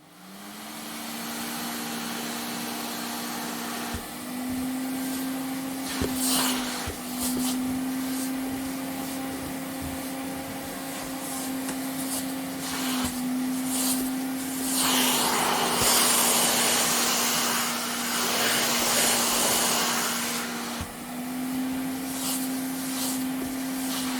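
Vacuum cleaner motor spinning up and then running steadily with a humming whine, its pitch stepping up and down slightly, and a louder rush of air for several seconds past the middle.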